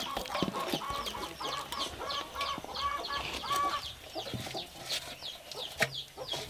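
Chickens clucking in a quick run of short calls with high chirps over them, thinning out after about four seconds. A sharp knock at the very start and another about six seconds in.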